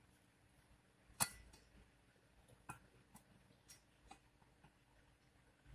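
Faint metal clicks and taps of a Landini DT85 tractor's clutch disc and pressure plate being handled and set in place by hand: one sharper knock about a second in, then a few faint ticks.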